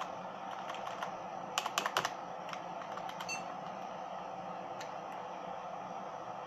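Keys pressed on a computer keyboard: a quick cluster of clicks about one and a half to two seconds in and a few single presses elsewhere, over the steady whir of the running computer. The presses come as the Award BIOS boot screen offers 'Press DEL to enter SETUP', and the CMOS setup menu follows.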